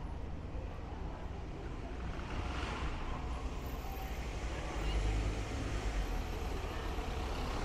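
City street ambience: a steady wash of traffic noise, with a low rumble that swells about five seconds in.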